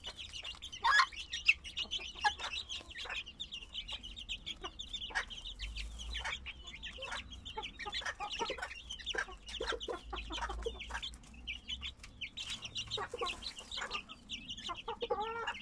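Fifty-day-old chicks peeping continuously in short high chirps as they feed, with the sharp clicks of beaks pecking grain in a metal trough. A hen clucks among them, with a lower, fuller call near the end.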